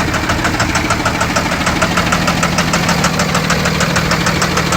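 Cummins ISB 6.7 diesel engine running steadily with a rapid, even knock, a fuel knock from a misfiring injector.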